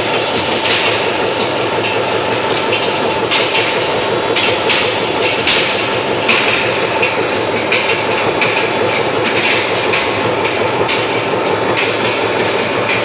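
Skew rolling mill for 50 mm steel balls running: a steady mechanical din with frequent irregular metallic clanks as hot rolled balls drop from the rolls and tumble along the screw conveyor through the quench tank, over a constant rush of pouring water.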